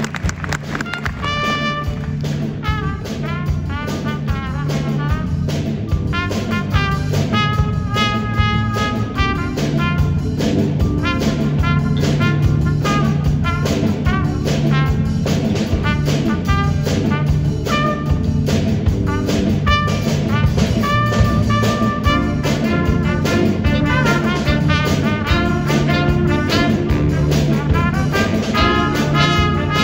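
Jazz big band playing: saxophones, trumpets and trombones over a steady driving beat.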